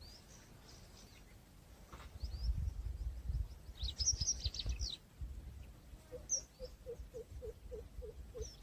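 Small birds chirping outdoors, with a quick run of twittering chirps about four seconds in. A low rumble on the microphone is loudest in the middle, and near the end a low call repeats about eight times at an even pace.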